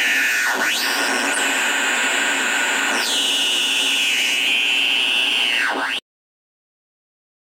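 Homemade joystick-controlled CMOS chaotic noise synthesizer putting out a harsh wash of noise with squealing tones that glide about, twice dipping sharply in pitch as the joystick moves. It cuts off abruptly about six seconds in, leaving silence.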